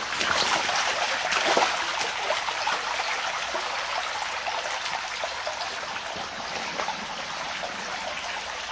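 Shallow stream running over rocks, a steady rush of water that grows slightly quieter as it goes on.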